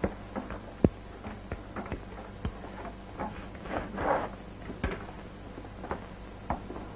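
Irregular light clicks and knocks, the sharpest just under a second in, of hands working the handle and lock of a steel vault door, over a steady low hum.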